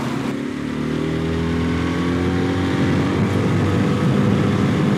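Mercury 15 hp outboard motor at full throttle, revs climbing steadily with a rising pitch and growing louder as the aluminium RIB accelerates toward top speed.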